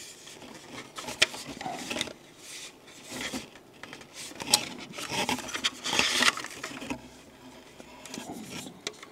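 Handling noise from smoke detectors and their packaging: irregular rustling with small plastic clicks and taps.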